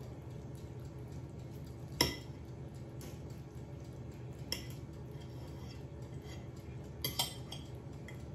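Knife and fork clinking against a plate while cutting into a baked stuffed pepper: a sharp clink about two seconds in, a lighter one midway, and two quick clinks near the end, over a steady low hum.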